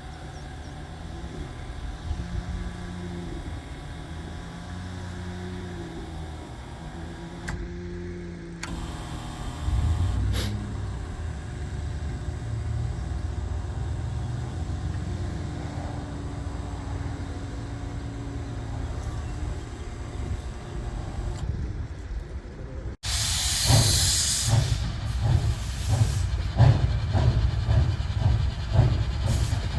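Narrow-gauge train on the move: a steady low rumble with wavering tones, then an abrupt change about two-thirds in to a burst of hiss followed by louder, rhythmic clatter.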